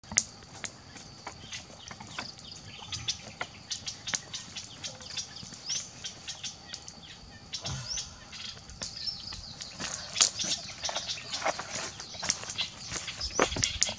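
Wood campfire crackling and popping: dense, irregular sharp snaps, a few louder pops near the end, over a steady high-pitched background hum.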